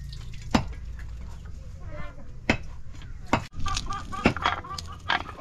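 Domestic hens clucking, with a quick run of clucks in the second half. Several sharp knocks sound in between.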